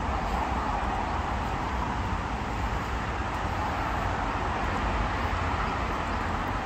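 Steady road traffic noise: an even, continuous hum of vehicles with a low rumble underneath.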